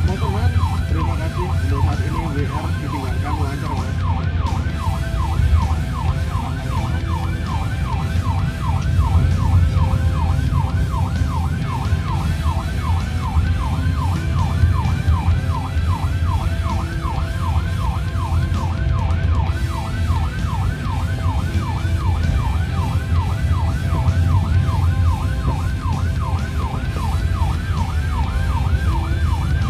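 Police patrol car's siren sounding a fast yelp, about three rising sweeps a second without a break, heard from inside the car's cabin over a steady low engine and road rumble.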